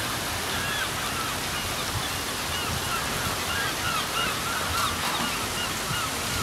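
Outdoor ambience: a steady rushing hiss with a run of short, repeated bird chirps over it.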